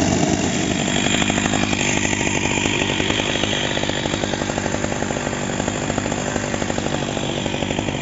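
Two-stroke chainsaw engine idling steadily, with no revving.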